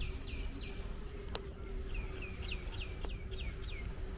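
A bird calling in a quick run of short, falling whistled notes, about five a second, at the start and again from about two seconds in. A steady low hum and a low rumble run underneath, with two sharp clicks.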